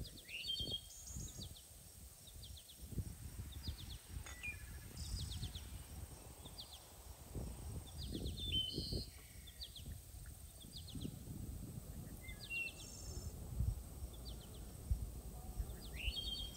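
Small birds chirping in short, quick trills, again and again, over an uneven low rumble of outdoor noise.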